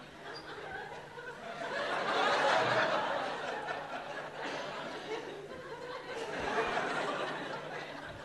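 Audience laughter. It swells to a peak about two seconds in, eases off, then rises again a little past the middle.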